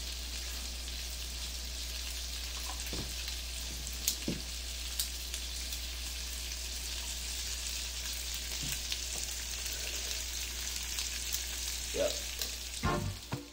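Sliced andouille sausage sizzling steadily in a frying pan on a gas burner, being left to blister and crisp, with a few light clicks.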